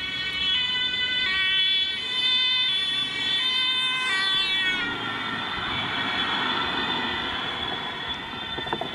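Police car's German two-tone siren (Martinshorn) alternating between a high and a low note as the car passes at speed. About five seconds in, both notes drop in pitch as it goes by, and the siren carries on, more blurred, as it drives away.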